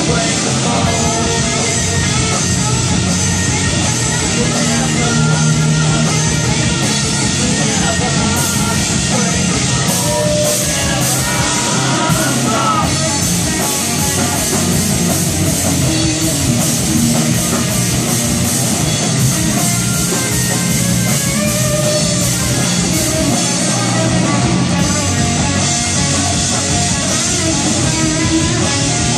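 Rock band playing loud and steady: drum kit with cymbals and electric guitar, heard live in the rehearsal room.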